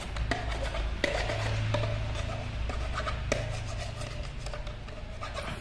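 Small plastic toy pieces being handled, rubbing together with a few sharp clicks and taps, over a steady low hum.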